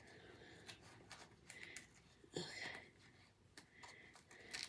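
Near silence with faint handling noise: scattered soft clicks and rustles as a plastic Ken doll is worked into a fabric shirt.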